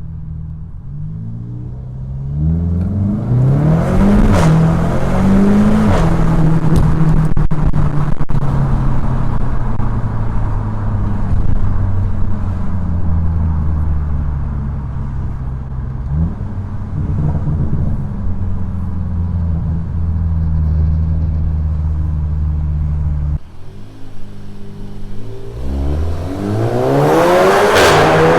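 Seat Leon Cupra 300's turbocharged 2.0-litre four-cylinder engine accelerating hard through quick DSG upshifts: the pitch climbs, drops sharply at each shift, and climbs again. About 23 seconds in the sound falls away suddenly, then it rises again in another hard pull.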